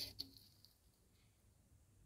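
Near silence, with two faint metal clicks just at the start as pliers touch the rusty steel mouse trap.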